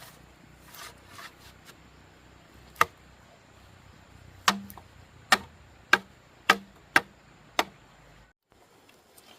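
Sharp striking knocks from a hand tool: one blow about three seconds in, then six more in quick succession, roughly two a second. The background drops away suddenly near the end.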